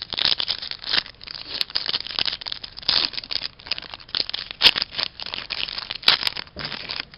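Shiny plastic wrapper of an Upper Deck MVP hockey card pack crinkling and crackling in quick irregular bursts as it is torn open and crumpled by hand, stopping near the end.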